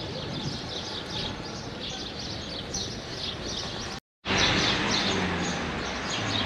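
Small birds chirping over steady outdoor background noise. The sound drops out for a moment about four seconds in, then comes back louder.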